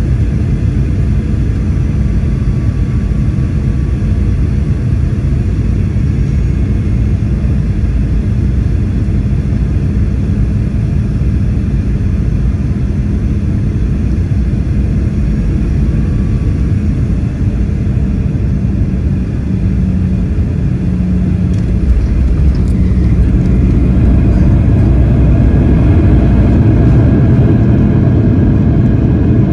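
Boeing 737-800 cabin noise at a window seat beside the wing: a steady rumble of its CFM56-7B turbofan engines and the airflow, with a steady hum, on final approach. About 22 seconds in, the jet touches down and the rumble grows louder and stays up on the runway rollout, as the engines spool up for reverse thrust.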